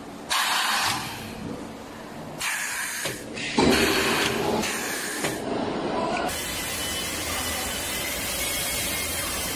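Hissing from a gummy jelly depositor: four short bursts of hiss in the first five seconds, then a steady hiss from about six seconds in.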